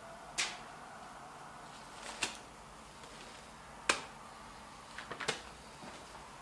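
Quiet room tone with a handful of short, sharp clicks and taps, the loudest about four seconds in: handling noise from a person moving about.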